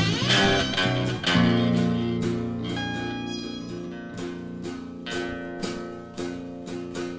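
Blues guitar playing an instrumental passage between vocal lines. Chords are struck and left to ring, with a note sliding up at the start, and the sound slowly fades toward the end.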